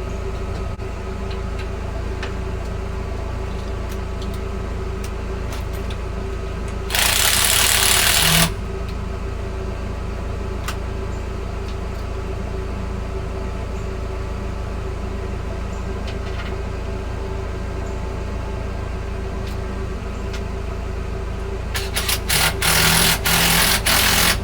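A steady low machine hum, broken twice by loud bursts of hissing compressed air: one held for about a second and a half, and a second one near the end that cuts on and off several times.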